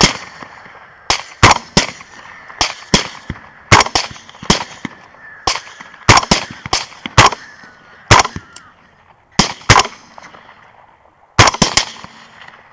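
Rapid volleys of suppressed rifle fire from several LWRC rifles in 6.8 SPC and .308, shot after shot in quick clusters of two to five with short pauses: a coordinated volley on a group of hogs, then follow-up shots at the running animals. The firing thins out, with a last pair of shots near the end.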